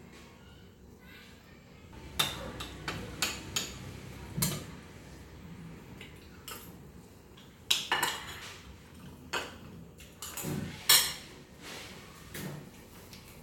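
Cutlery and ceramic dishes clinking at a dining table: a scattering of short, sharp clinks in two clusters, the loudest about eleven seconds in.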